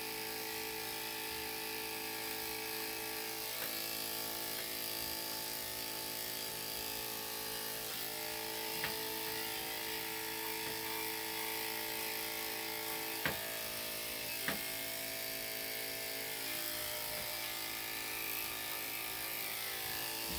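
Electric dog grooming clippers running steadily with a constant hum, its pitch shifting slightly a few times, with a few faint clicks.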